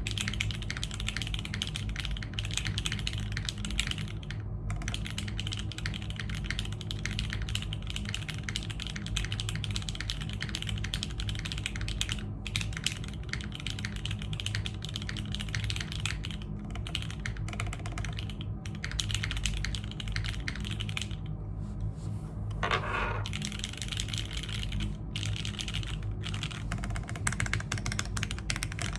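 Continuous fast typing on a Keebscape Solaris mechanical keyboard with an O-ring-mounted polypropylene plate, factory-lubed Alexotos Granite switches and GMK doubleshot keycaps: a dense patter of key strokes with a soft bottom-out and a slightly plasticky sound, broken by a brief pause about two-thirds of the way through. A steady low hum lies underneath.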